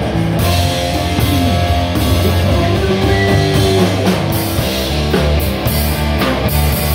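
A rock band playing live: a drum kit with cymbal crashes over amplified electric guitar.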